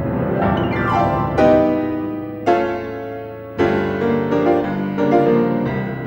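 Solo piano playing slow classical music: chords struck about once a second and left to ring, with rippling runs between them.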